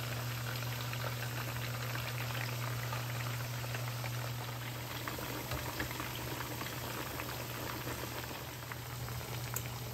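Chicken pieces deep-frying in oil in a small pan over low heat: a steady sizzle of fine crackling pops, over a low steady hum.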